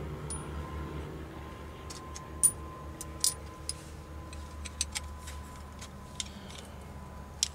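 Scattered small metallic clicks and clinks as a chrome VW bus jail bar and its end brackets are handled and set against the window frame, over a low steady hum.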